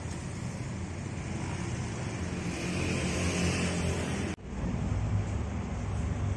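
Motor scooter engine running as it rides past, over steady street traffic. The sound cuts off abruptly a little over four seconds in, giving way to another steady traffic rumble.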